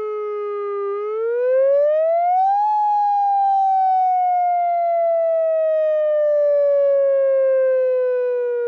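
Warning siren sounding a wail: one clean tone dips slightly, climbs steeply for about two seconds, then falls slowly through the rest.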